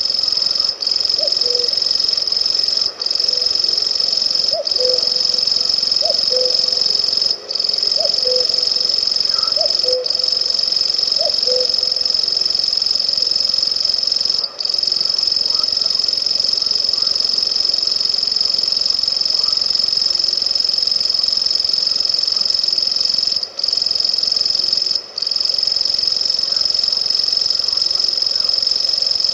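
Grasshopper warbler (Locustella) singing its reeling song: a long, high, insect-like trill that runs on almost without pause, broken only by a few split-second gaps. Lower two-note calls of another bird repeat faintly behind it during the first half.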